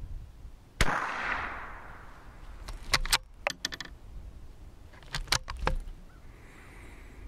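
A single shot from a Ruger American Rimfire bolt-action .22 LR rifle, a sharp crack with a short echo, about a second in. Two clusters of metallic clicks follow, a couple of seconds apart, as the bolt is worked.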